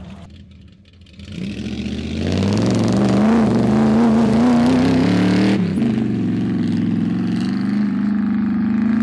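1987 GMC Sierra Classic's 355 small-block V8 revving hard under full throttle as the truck climbs a grassy hill in two-wheel drive, its pitch wavering as the rear tyres lose traction on slick grass. It builds up about a second in, and about halfway through the harsher edge drops away and the engine holds a steadier high note.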